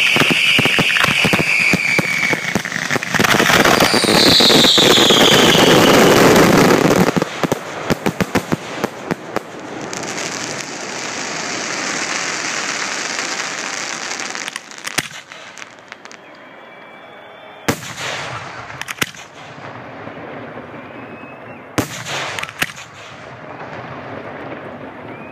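Fireworks display: loud, dense crackling and bangs with whistles falling in pitch over the first several seconds, thinning after about seven seconds to scattered sharp cracks, then a few single loud bangs near the end.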